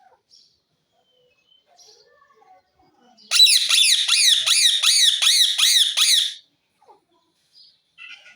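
Parrot squawking: a loud run of about nine harsh calls in quick succession, about three a second, each dropping in pitch, lasting some three seconds, preceded by a few faint chirps.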